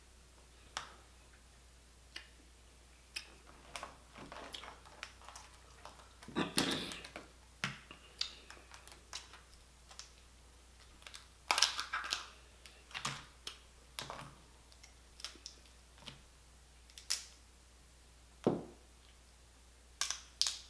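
Steamed blue crab shells being cracked and pulled apart by hand: irregular sharp cracks and snaps, with louder flurries about six and a half and twelve seconds in.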